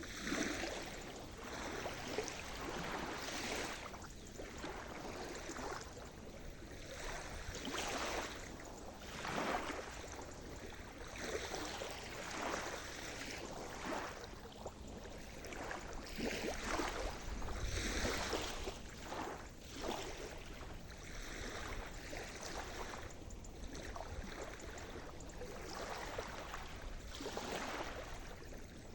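Sea surf: small waves breaking and washing ashore one after another, every second or two.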